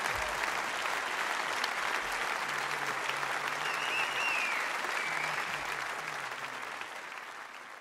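Concert audience applauding at the end of a jazz performance, with a couple of short high whistles. The applause fades away near the end.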